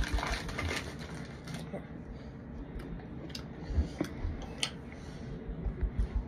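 Close-up eating sounds of raw cornstarch: a plastic fork stirring and scraping powdered cornstarch in a metal bowl, with a few sharp clicks in the middle. Runs of low, regular chewing thumps come just after the start and again near the end.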